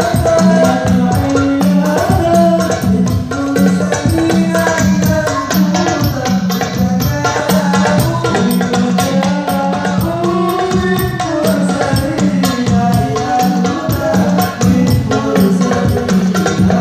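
Hadrah ensemble playing: rebana frame drums beaten by hand in a steady, busy rhythm under a regular low drum pulse, accompanying a man singing sholawat through a microphone.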